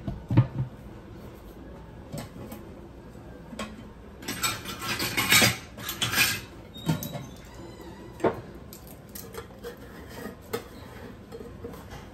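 Kitchen utensils clinking, knocking and scraping against containers as baking powder is measured out by the tablespoon, with a busier stretch of scraping and rustling about four to six seconds in.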